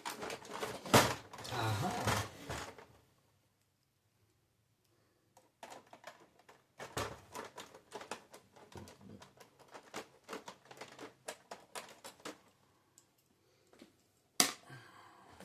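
Irregular light clicks and taps of plastic printer parts being handled and worked apart by hand, with one sharper click near the end.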